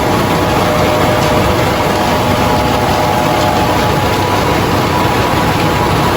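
Rice milling machine running steadily: a loud, even mechanical din with faint steady tones in it.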